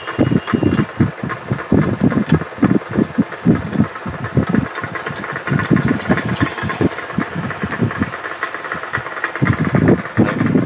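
A low, uneven throbbing rumble runs throughout. A few light metallic clicks come through it as small gearshift parts are handled and fitted into the open crankcase.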